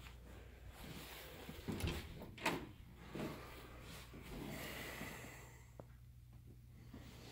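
Quiet room with a few faint knocks and bumps, the clearest two close together about two seconds in.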